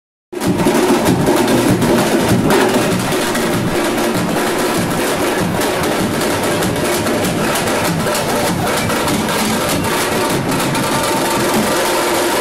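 A band of drummers playing a dense, steady, fast drum rhythm together, many strikes overlapping.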